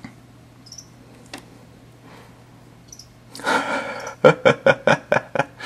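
A person's breathy laughter: a rush of breath about three and a half seconds in, then a quick run of about seven short chuckling pulses near the end.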